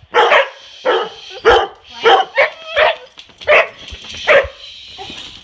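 Excited dog barking: a rapid, irregular string of about eight sharp barks that stops after about four and a half seconds.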